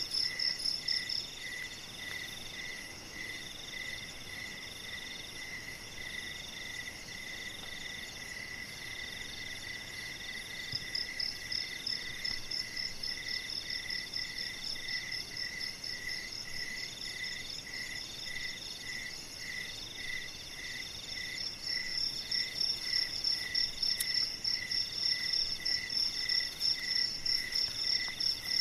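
Night-time chorus of crickets: one chirping steadily at about two chirps a second, another in slower, longer pulses, and a higher rapid trill that stops about a second in, returns around eleven seconds and is loudest over the last third.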